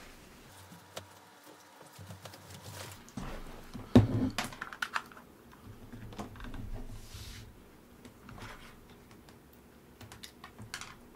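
Handling noises on a wooden tabletop: a USB charging cable dragged across the desk and scattered taps and clicks, the loudest a sharp knock about four seconds in. Near the end, small clicks as the clip-on charger is fitted to the back of a smartwatch.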